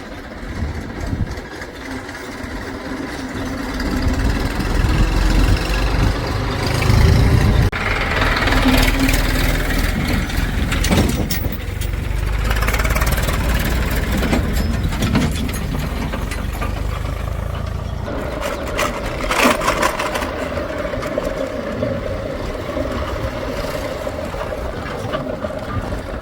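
A heavy vehicle's engine running, working harder and louder a few seconds in, then settling, with a steady tone added in the second half.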